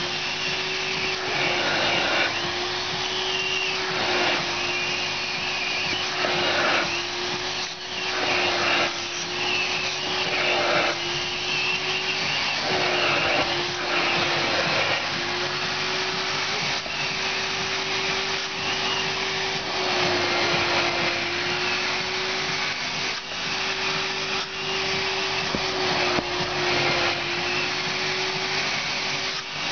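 Spray-extraction upholstery cleaner's vacuum motor running steadily, sucking through a hand nozzle drawn over a fabric car seat. The suction hiss swells and fades every couple of seconds with each stroke, and the motor's pitch dips slightly as the nozzle seals against the fabric.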